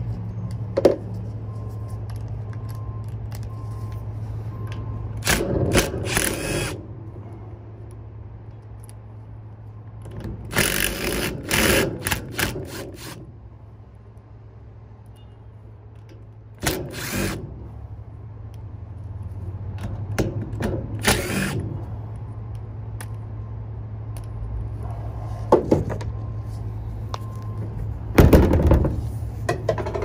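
Cordless drill with an 11/32 nut driver spinning off the condenser fan motor's mounting nuts, in about six short runs with pauses between. A steady low hum runs underneath.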